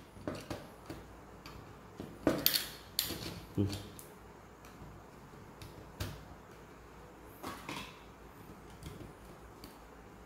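Irregular clicks and knocks of plastic miniature circuit breakers and a screwdriver being handled in a plastic panel board enclosure as the breakers are fitted, with a cluster of louder knocks a couple of seconds in and single knocks later.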